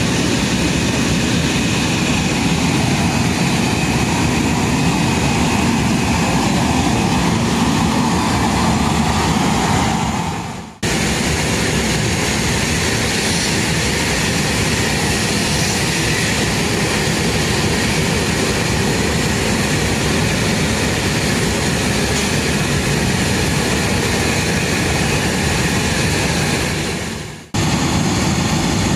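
Steady loud roar of aircraft jet engines across an airport apron, with a faint whine in it. It fades out and starts again twice, about 11 and 27 seconds in.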